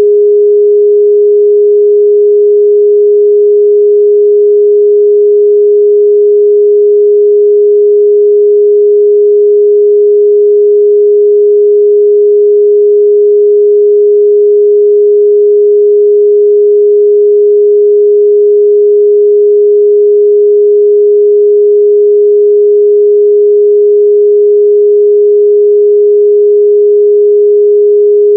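A steady, loud 414 Hz pure sine test tone, one unchanging pitch with no other sound.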